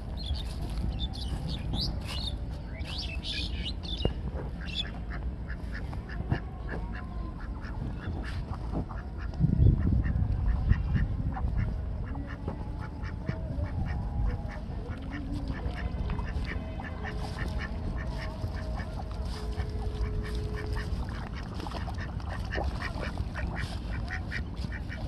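Domestic ducks calling as they walk and swim, over a steady low rumble, with a louder low burst about ten seconds in.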